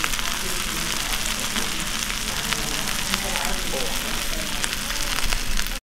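Soup sizzling and bubbling hard in a hot bowl at the table, a dense crackle of many tiny pops. It cuts off abruptly near the end.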